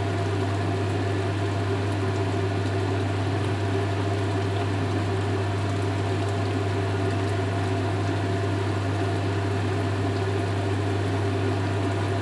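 A kitchen appliance's steady low electrical hum with a fan-like whir, level and unchanging.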